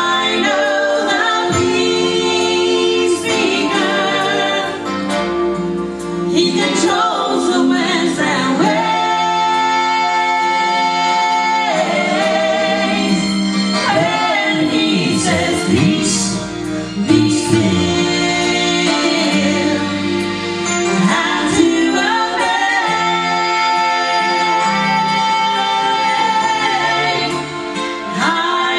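Gospel vocal group singing long held notes over accompaniment music.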